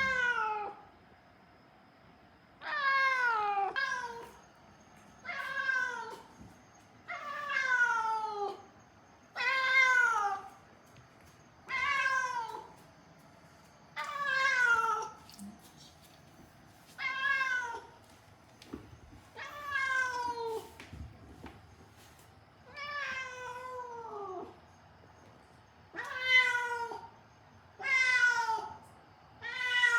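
Siamese-mix cat meowing over and over, about a dozen drawn-out calls each falling in pitch, roughly one every two seconds: persistent crying from a cat that is not settling as an indoor cat.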